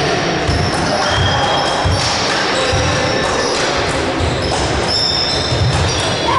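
Basketball being dribbled on a gym floor: dull bounces repeating about once a second, with short high squeaks of shoes and the noise of a large hall with voices.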